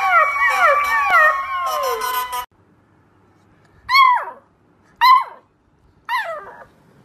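Golden retriever puppy howling, several wavering pitches overlapping, cut off suddenly about two and a half seconds in. After a short pause, a beagle puppy gives three short yelping barks about a second apart, each falling in pitch.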